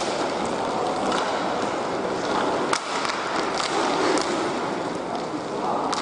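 Hockey play on the rink: skates scraping with scattered sharp clicks of sticks and puck over a steady rink din, one louder crack a little before halfway.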